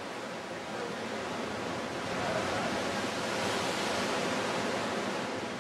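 Sea surf churning and surging against the rocks of a sea cave's opening: a steady rushing wash that swells a little in the middle.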